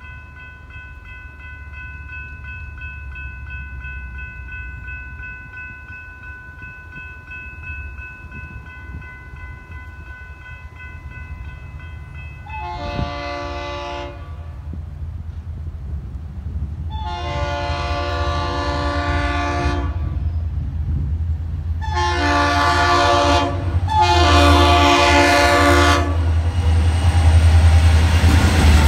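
Florida East Coast diesel freight locomotive approaching and passing a grade crossing, sounding four horn blasts, the last two close together. Under the horn a low engine rumble grows louder until the locomotive goes by near the end. A steady high ringing tone runs through the first twelve seconds or so.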